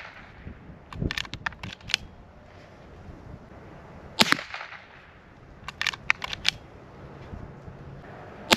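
Henry Golden Boy .22 LR lever-action rifle firing single shots. Between shots comes a quick run of metallic clicks as the lever is worked to eject and chamber the next round. There are lever clicks about a second in, a shot a little after four seconds, more lever clicks around six seconds, and another shot right at the end.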